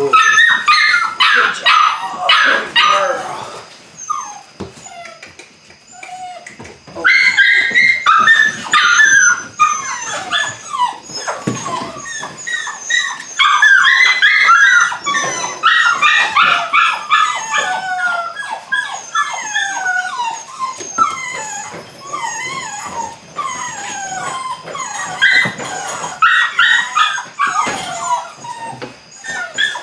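A litter of 8-week-old Belgian Malinois puppies yipping and whining: many short, high squeals that overlap and bend in pitch, easing off for a couple of seconds about four seconds in.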